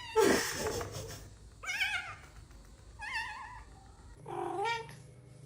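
A loud, short noisy burst just after the start, then a domestic cat meowing three times, each meow about a second apart.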